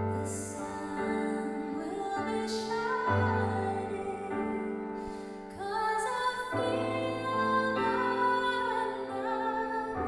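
A woman singing a slow, tender ballad with a Roland keyboard playing piano accompaniment.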